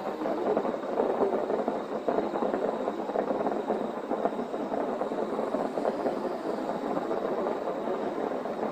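Fireworks barrage: a dense, unbroken rumble of many overlapping aerial shell bursts, with no single bang standing out.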